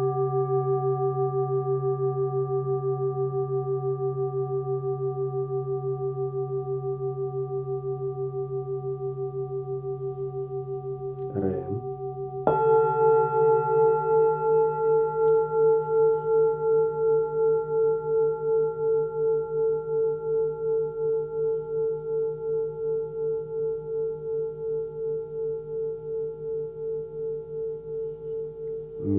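Forged singing bowl tuned to C (132 Hz) ringing after a mallet strike, its long tone throbbing with a slow, even beat as it fades. About twelve seconds in, after a brief handling noise, the next bowl, a step higher at D, is struck and rings on with the same pulsing beat, with another short handling noise at the very end.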